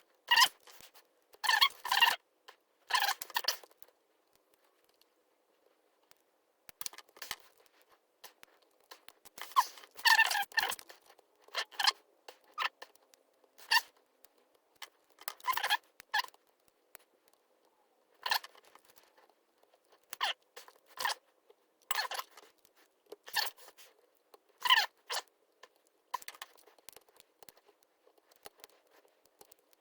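Lock pick and tension wrench working the pin stack of a custom challenge lock: irregular bursts of small metallic scraping and clicking, some in quick clusters, with short pauses between.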